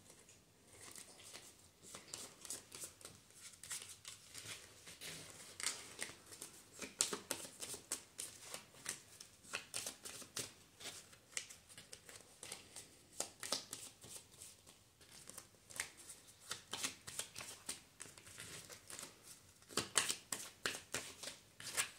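Tarot cards being shuffled by hand, heard as a long run of quick, soft clicks and rustles.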